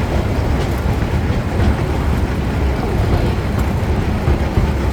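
Steady low rumble of a small toy train running along its track.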